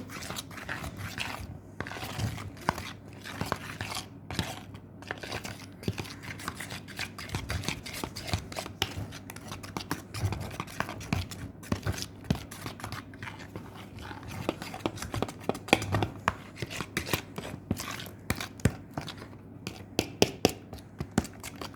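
A fork stirring cake batter in a mug: continuous scraping and quick clicks of the fork against the mug, coming faster and denser in the last few seconds.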